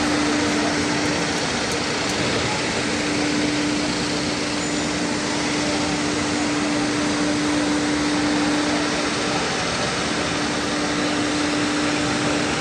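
Steady open-air background noise with a steady low hum running under it, the hum dropping out briefly a few times.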